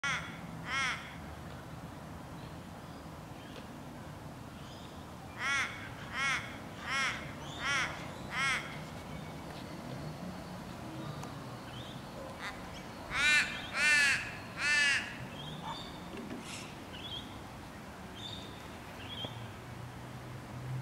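A crow cawing: a single call, then a run of five evenly spaced calls, then three louder calls.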